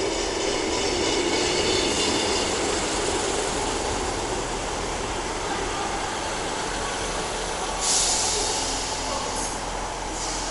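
South West Trains diesel multiple unit running into a station platform: its diesel engines and wheels on the rails give a steady rumble, with a short burst of hissing about eight seconds in.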